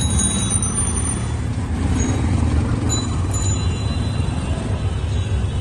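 Steady road-traffic noise with a low engine rumble from motor vehicles on the street.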